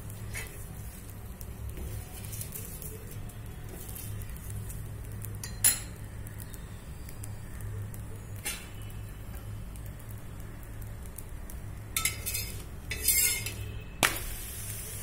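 A steel spoon clinking and scraping against an iron tawa while oil is spread on a paratha. There are a few sharp metal clinks, the loudest coming in the last few seconds, over a steady low hum.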